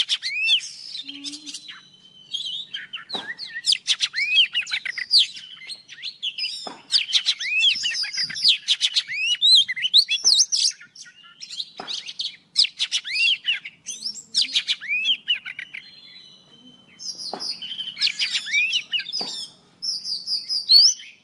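Oriental magpie-robins, a female and young birds, singing: a string of varied phrases of quick rising and falling whistles mixed with rattling clicks, with short pauses between phrases.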